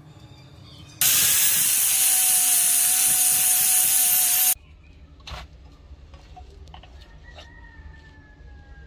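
A power grinder with a sanding disc grinding a small steel blade held in a vise: a steady whine over a loud hiss for about three and a half seconds, cutting off abruptly. Afterwards a few light metal clicks and scrapes as the blade is handled in the vise.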